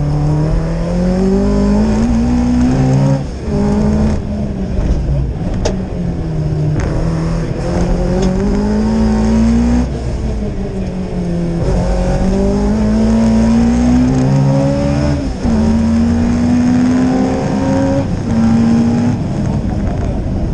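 Rally car engine heard from inside the cockpit, driven hard through a stage. Its pitch climbs under acceleration and drops back again and again as the driver shifts and lifts, with a sharp cut in the sound about three seconds in and again about fifteen seconds in.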